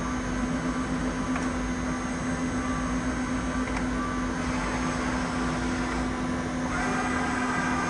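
Steady machine hum with a constant low tone and a noisy haze; a few higher tones join in near the end.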